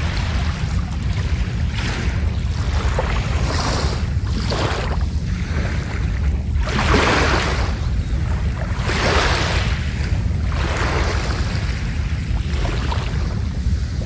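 Small sea waves breaking and washing onto a sandy beach, one swell of surf about every two seconds, the biggest about halfway through, over a steady low rumble.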